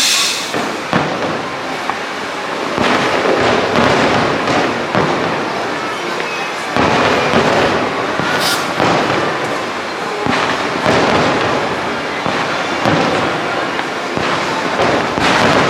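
Aerial fireworks going off in quick succession: dense crackling and bangs that swell and fade in waves, with sharp cracks near the start and about halfway through.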